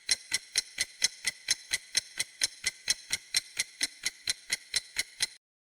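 Clock-style ticking countdown sound effect, about six even ticks a second over a steady high-pitched tone, giving the quiz's answer time; it stops shortly before the end.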